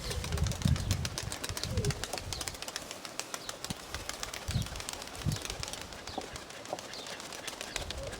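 Nikolaev pigeons cooing, with strong wind gusting on the microphone in low rumbling surges.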